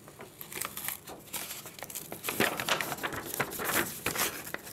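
Paper rustling and crinkling as a plastic credit card is worked loose from the folded paper letter it is mounted in, with irregular small crackles throughout.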